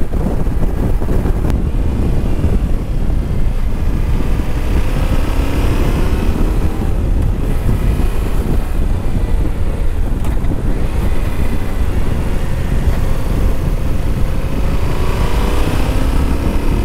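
Yamaha Ténéré 700 motorcycle riding at speed: wind rushing over the helmet microphone, with the bike's parallel-twin engine running underneath. The engine pitch shifts about a third of the way in and again near the end.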